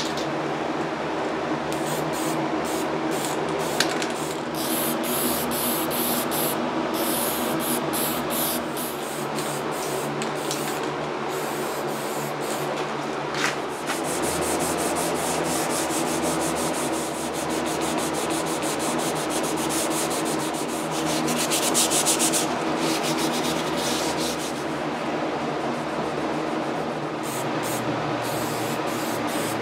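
Fine 320-grit sandpaper rubbed by hand in quick back-and-forth strokes over a walnut chair's lacquer finish: a light scuff-sanding before spot-spraying with lacquer.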